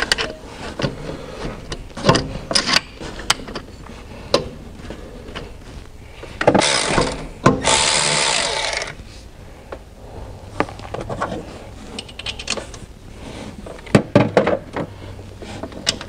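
Cordless electric ratchet running twice near the middle, each run about a second long, driving in the alternator's mounting bolt. Around it, scattered clicks and knocks of hand tools against metal.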